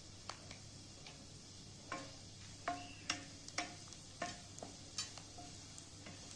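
A wooden spoon stirs frying onions in a stainless steel pot, knocking against the pot's sides and bottom about ten times at uneven intervals with short metallic rings, over a faint sizzle.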